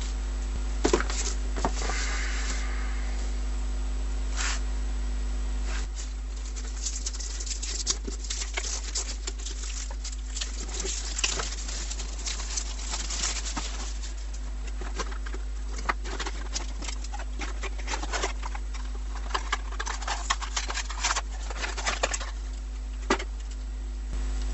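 Webcam retail packaging, plastic and cardboard, being handled and opened by hand: irregular crinkles, rustles and small clicks, busier from about six seconds in, over a steady low electrical hum.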